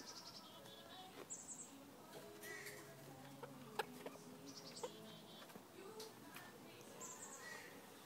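Parrot making short, faint, high chirps, about four over several seconds, with a couple of sharp clicks in between.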